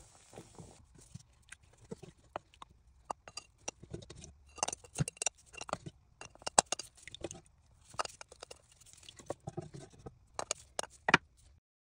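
Wet squelches and clicks of boiled red cabbage leaves being handled in a pot with a gloved hand and a wooden spoon. The sounds come irregularly, with a few sharper clicks, the loudest about six and a half seconds in and near the end.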